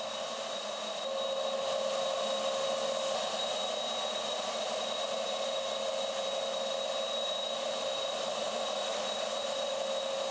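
Steady whir and hiss of a machine running, with a constant high whine over it.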